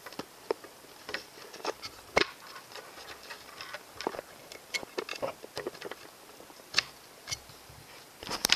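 Irregular clicks and taps of banana plugs being pushed into the output sockets on the aluminium case of a Thunder AC680 battery charger, with fingers handling the case. The sharpest clicks come about two seconds in and just before seven seconds.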